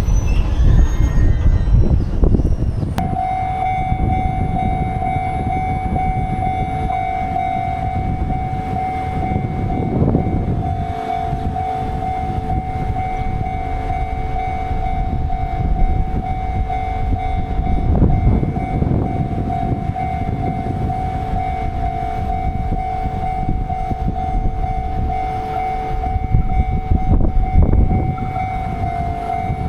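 A train running by with a continuous rumble that swells several times. About three seconds in, a steady high-pitched tone starts abruptly and holds without a break.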